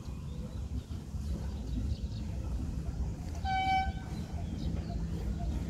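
One short, high horn toot from a diesel locomotive, about three and a half seconds in, over a low steady rumble.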